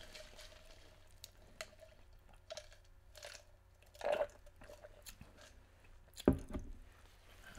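Close-up mouth sounds of eating: chewing with small wet clicks, a sip drawn through a drinking straw about four seconds in, and a sharp thump, the loudest sound, a couple of seconds later.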